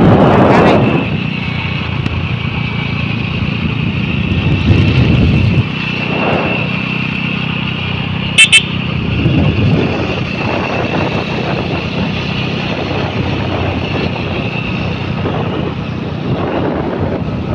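Motorcycle engines running on the move, swelling a couple of times as the throttle opens. A quick, loud double horn beep sounds about eight and a half seconds in.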